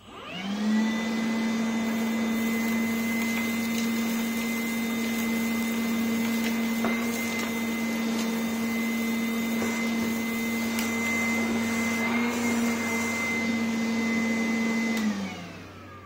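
Makita DVC750LZ 18-volt brushless cordless vacuum switched on at its lowest speed, spinning up within a second to a steady motor hum with a high tone over it while its hose sucks up a pile of sawdust. About fifteen seconds in it is switched off and winds down, the pitch falling away.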